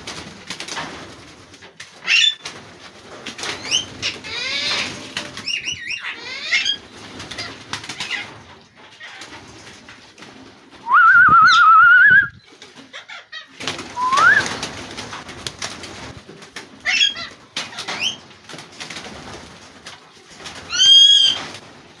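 Alexandrine parakeets in an aviary, calling in short, scattered screeches. A loud wavering call lasts about a second, a little before halfway, and is followed by a short rising call.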